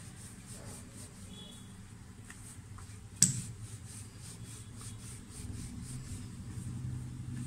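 Wooden rolling pin rolling out paratha dough on a floured countertop, a low rubbing rumble, with one sharp knock about three seconds in.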